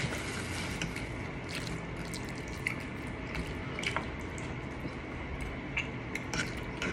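Wet eating sounds of people chewing spaghetti and chicken, with scattered small clicks over a steady background hiss.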